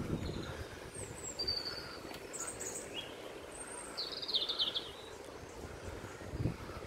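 Songbirds calling in the trees: a few short high chirps, then a quick trill of rapid notes falling in pitch about four seconds in. A steady low rumble runs underneath, with a thump near the end.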